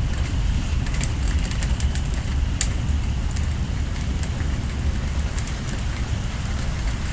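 Strong wind buffeting the phone's microphone as a steady low rumble during a tornado, with rain and scattered sharp ticks of drops hitting nearby, one louder tick about two and a half seconds in.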